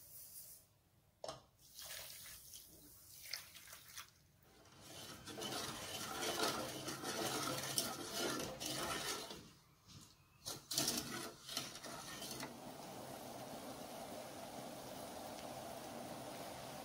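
Sugar syrup being made in an aluminium pot: a few scattered light clicks at first, then several seconds of liquid sloshing as the sugar and water are stirred with a wooden spoon, and a few sharp clicks around ten seconds in. From about twelve seconds on, a steady hiss and bubbling as the syrup boils.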